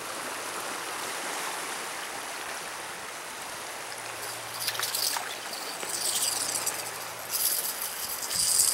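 Water rushing and churning in a concrete-lined canal just below its gate structure, heard as a steady hiss. About halfway through, scratchy rustling sets in and grows louder toward the end.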